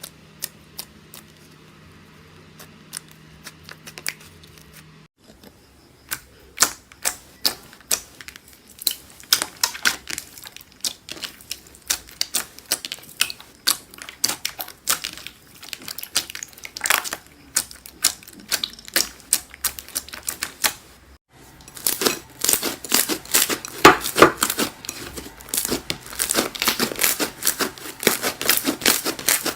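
Slime being squeezed and pressed by hand, giving runs of crisp clicks and crackles; the clicking is sparse at first, then thickens, and becomes loud and dense crackling near the end.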